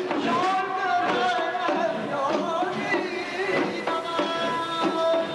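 Middle Eastern-style music with drum beats: a wavering melody line, then a steady held note coming in about four seconds in.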